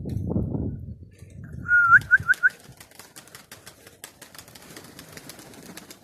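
Wind gusting on the microphone, then about two seconds in a loud whistle: one held high note followed by four quick upward flicks. After it, faint irregular clicks continue.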